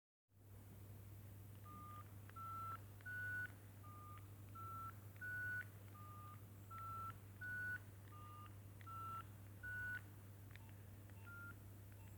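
Nokia 6070 mobile phone playing a simple beeping ringtone through its small speaker: a three-note rising figure of pure tones, repeated four times. A few fainter short beeps and clicks follow near the end, over a steady low hum.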